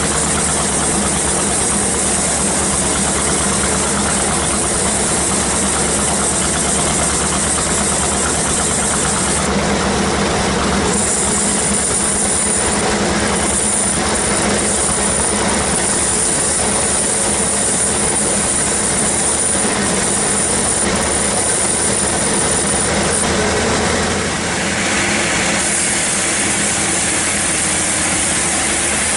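Sawmill band saw machine running steadily under its engine, with a thin high whine added from about 11 seconds in to about 23 seconds.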